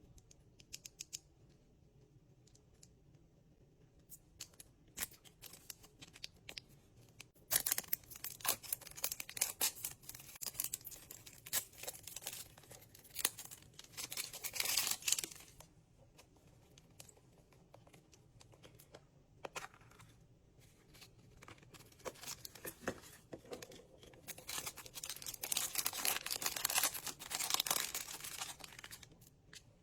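Plastic wrapping of a Mash'EM mystery toy being torn open and crinkled by hand: scattered crackles and clicks, then two long stretches of dense crinkling, the first about a quarter of the way in and the second near the end.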